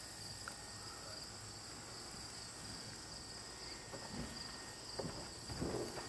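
Faint, steady chorus of crickets trilling at a high, even pitch.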